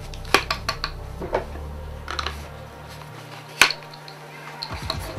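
Pistol magazines pushed into a hard plastic double magazine pouch on a drop-leg holster platform, clicking and knocking into place. Several sharp clicks, the loudest about three and a half seconds in.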